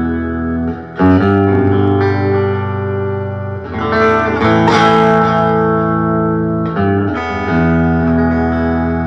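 Telecaster electric guitar played through a pedalboard into a Fender Deluxe Reverb 1965 Reissue tube amp turned up to about 6-7: held chords that ring out and change about a second in, near four seconds in, and again around seven seconds in.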